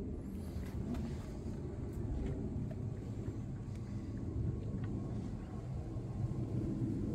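Steady low rumble of outdoor background noise, with a few faint ticks over it.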